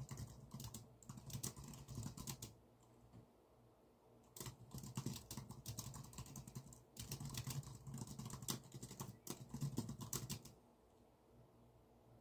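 Typing on a computer keyboard in quick runs of key clicks: a burst in the first two seconds, a pause, then longer bursts from about four and a half seconds to ten and a half, then the typing stops. A faint steady hum lies underneath.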